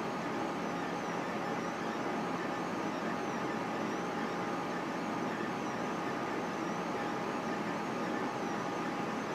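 Solidoodle 3 3D printer running a print: a steady whirring hum and hiss, with the stepper motors' faint high whine rising and falling in pitch as the print head and bed move.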